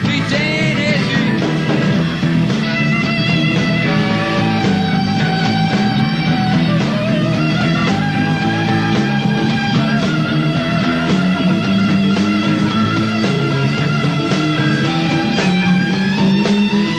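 Live rock band playing loud, with an electric lead guitar holding and bending notes over the bass and drums.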